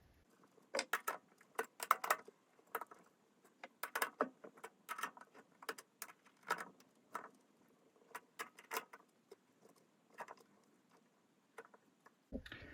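Irregular sharp clicks, several a second, from cutting an M12 outer thread with a threading die pushed square by the lathe tailstock.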